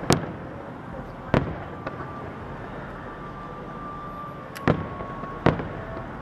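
Aerial fireworks shells bursting as sharp bangs: one just as the sound begins, another about a second later, then a close pair and a last bang in the second half, over steady background noise.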